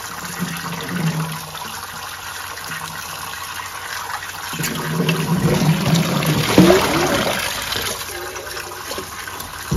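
Tap water running steadily onto leafy greens in a plastic colander in a stainless steel sink, with louder splashing for a few seconds around the middle as the colander is tilted and turned under the stream.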